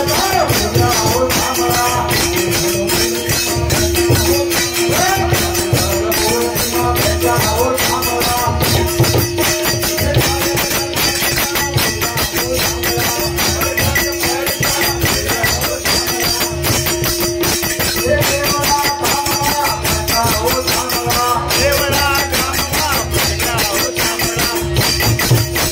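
Live Gujarati devotional bhajan (santvani): a harmonium holds a steady drone note under a sung melody, while wooden kartal clappers rattle a fast, unbroken rhythm.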